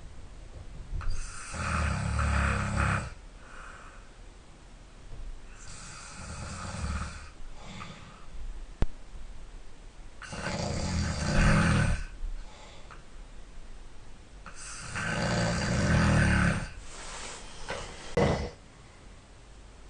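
A person snoring heavily in sleep, five snores about four seconds apart, each a low buzzing sound lasting one to two seconds. The second snore is weaker and the last is short.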